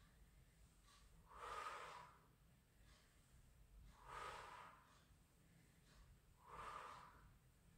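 Faint, heavy breaths of a person doing a Pilates scissor abdominal exercise, three of them about two and a half seconds apart.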